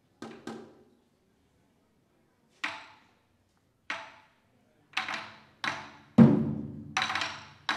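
Chinese barrel drums (tanggu) struck with wooden sticks. A few sparse, light strikes come first; then from about five seconds in the hits come faster and louder, and the loudest, about six seconds in, rings on with a low drum tone.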